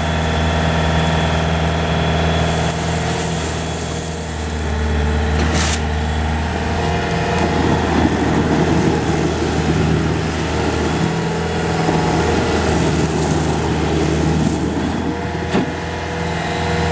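Bobcat S220 skid-steer loader's diesel engine running steadily, with a rougher, noisier stretch in the middle and two sharp clicks.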